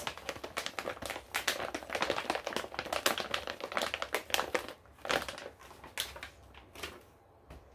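Crinkly plastic pouch handled and tapped with fingernails: a dense run of crackles and clicks that thins out about five seconds in and stops near the end.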